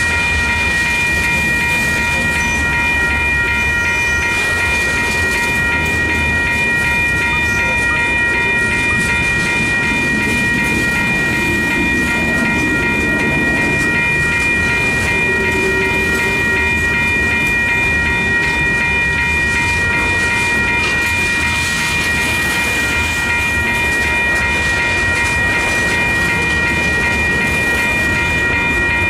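Freight train of enclosed autorack cars rolling steadily past, with a steady high-pitched ringing squeal over the rumble of the wheels.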